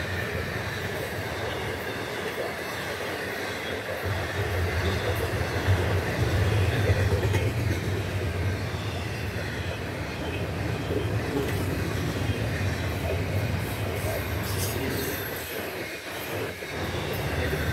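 Double-stack intermodal freight train's container well cars rolling past at speed: a steady rumble of steel wheels on rail, briefly quieter near the end.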